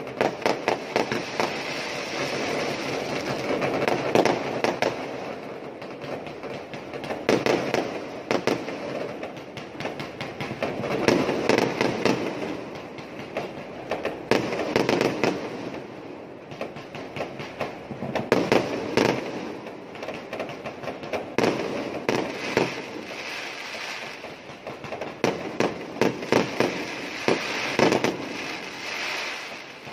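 Many aerial fireworks going off at once: rapid, overlapping bangs and crackling, swelling in dense clusters every three to four seconds with no real pause.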